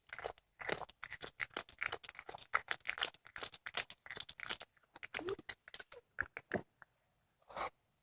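A cat chewing and crunching on a squirrel carcass: a rapid, irregular run of crunches that thins out after about five seconds into a few separate bites.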